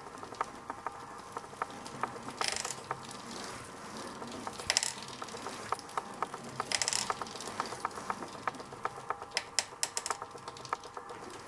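Bicycle crank turning with steady fine ticking, and a louder gritty clicking burst about every two seconds, once per turn at one crank angle: an abnormal periodic noise that the owner suspects comes from the bottom bracket of a cotterless crankset.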